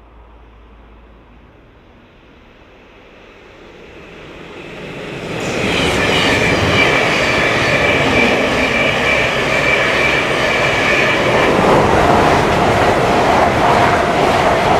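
Thameslink Class 700 electric multiple unit approaching and passing close at speed: a swelling rush that turns loud about five seconds in, with a steady high whine over the wheel rumble. In the last few seconds the whine gives way to a lower steady tone as a second train passes.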